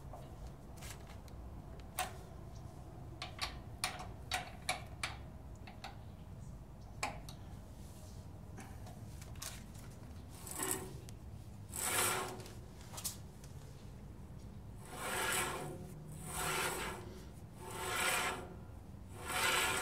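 Hand-tool work on a sawmill's band-blade assembly: a scatter of sharp clicks, then a run of rasping strokes, each about a second long and about a second and a half apart.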